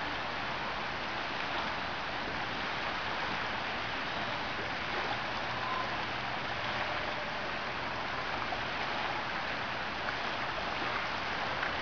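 Steady rushing and splashing of lake water as small waves roll in and a dog wades through them.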